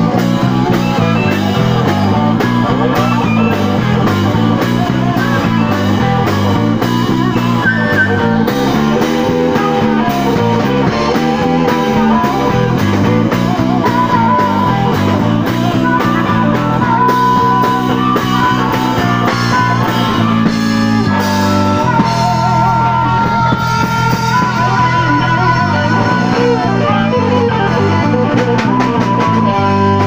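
Live blues-rock band playing an instrumental passage: electric guitars and harmonica over a drum kit and a bass line stepping through notes.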